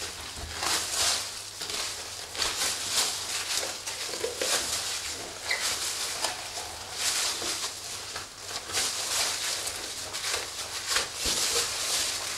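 A boning knife cutting the skin away from a raw pork shoulder while plastic-gloved hands handle the meat, giving irregular rustling and scraping strokes.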